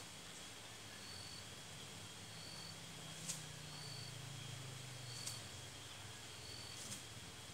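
Faint outdoor ambience: a short high chirp repeating about once every second and a half over a steady faint high tone and a low drone, with three sharp clicks, the first the loudest.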